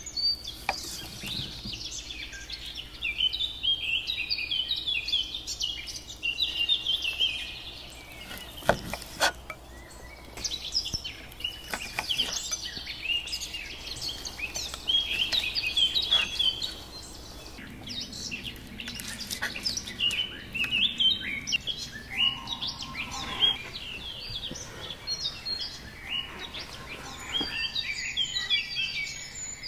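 Several songbirds chirping and singing at once, quick overlapping twittering phrases going on without pause, with a couple of sharp clicks about nine seconds in.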